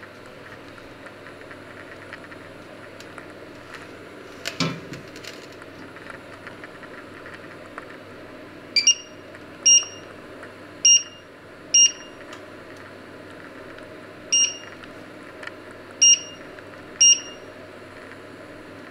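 Touch controls of a glass-ceramic cooktop beeping as they are pressed: seven short beeps of one pitch, unevenly spaced, over a faint steady hum. A single knock comes a few seconds before the first beep.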